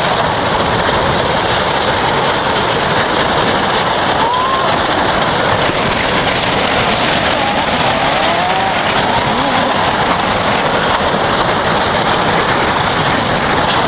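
Torrential hurricane rain and wind, a loud, steady rush of noise, with a few faint wavering tones about four seconds and eight seconds in.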